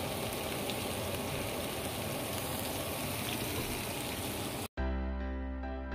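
Salmon pieces sizzling in hot oil in a frying pan, a steady crackling hiss. It cuts off suddenly near the end and background music begins.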